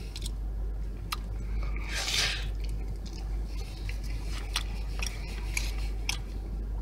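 Close-up mouth sounds of a person chewing a mouthful of quesadilla: scattered small wet clicks and smacks, with a short rustle about two seconds in, over a steady low hum.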